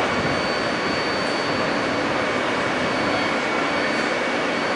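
R-160B subway train standing at the platform: a steady hiss of its running equipment with a constant high-pitched whine and a low hum, the pitch not yet rising for departure.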